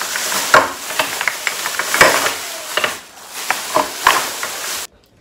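Thin plastic grocery bags being handled and rustled, crinkling steadily with many sharp crackles; the sound cuts off suddenly near the end.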